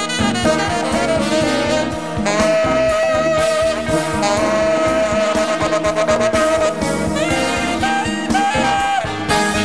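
Large jazz orchestra playing: brass and saxophones over a steady rhythmic pulse, with one long held horn note through the middle of the passage.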